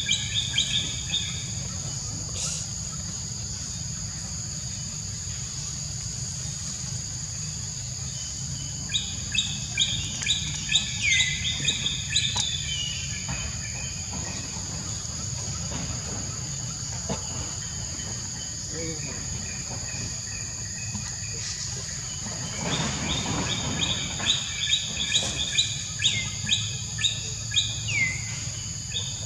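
Wild birds chirping in several bursts of rapid repeated notes, some ending in short falling sweeps, over a steady high-pitched insect drone and a low steady rumble.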